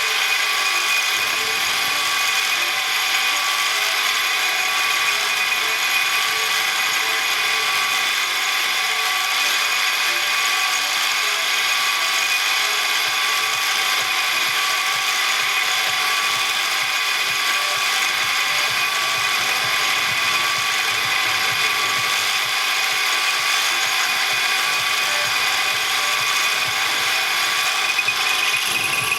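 A machine tool running steadily, its gear train whining with a dense, even, high-pitched ringing, as a new bushing is machined.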